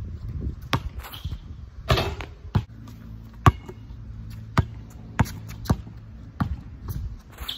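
Basketball dribbled on a concrete driveway: about ten sharp bounces at an uneven pace, some close together, some a second apart.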